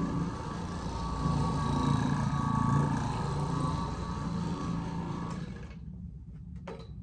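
Oreck Orbiter orbital floor machine running steadily as it scrubs carpet, then switched off near the end, its hum cutting off abruptly. A couple of faint clicks follow.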